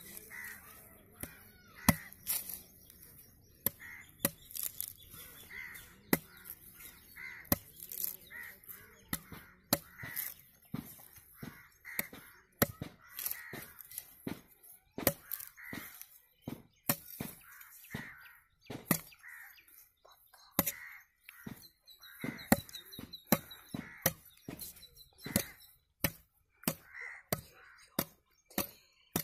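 Machete blade chopping into the fibrous husk of a green tender coconut, shaving it down: sharp chops at an irregular pace, about one or two a second.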